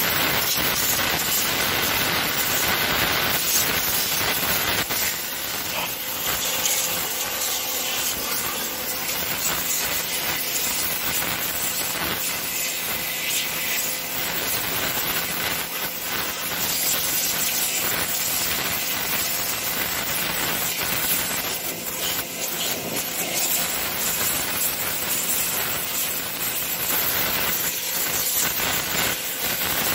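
Pressure washer jet spraying against the underside of a lawn mower deck, blasting off caked grass clippings and dirt: a loud, steady hiss of water hitting metal, with a steady motor hum underneath.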